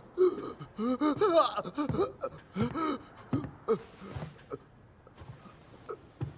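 A person's wordless vocal sounds: short gasps and breathy voiced sounds that slide up and down in pitch, dying away after about four seconds.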